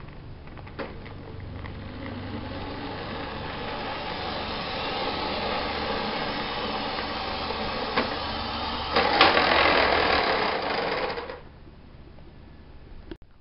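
Lima O gauge model trains running on sectional track: electric motors whirring and wheels rattling along the rails. The running noise grows louder for about two seconds, then drops away sharply near the end. A few single clicks.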